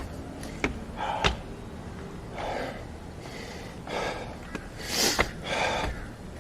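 A man breathing hard in heavy, open-mouthed gasps, about five breaths, worn out from a hike. A few sharp clicks or taps come in between.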